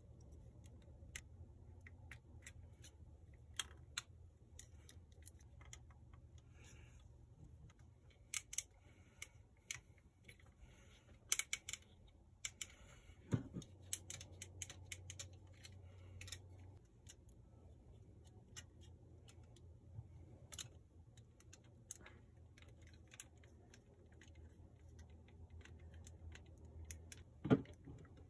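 Hard plastic parts of a Zoids HMM Death Stinger model kit clicking and knocking as it is handled and its joints are posed. The clicks are irregular, with a few louder snaps; the loudest comes near the end. A low steady hum runs underneath.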